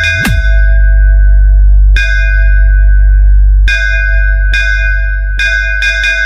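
Bass-heavy DJ sound-check track: a loud, sustained deep sub-bass under bell-like synth chimes struck every couple of seconds, with a short falling bass sweep just after the start.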